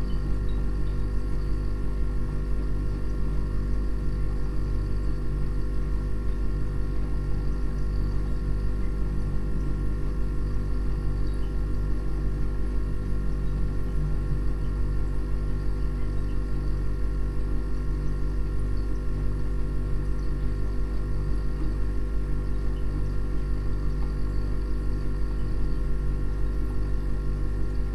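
Steady machine hum with a strong low drone, several steady tones above it and a faint fast pulsing, unchanging throughout.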